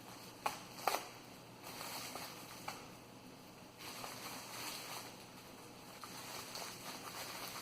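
Unpacking a replacement switch and its packaging: a few light clicks and knocks early on, then soft rustling from about two seconds in.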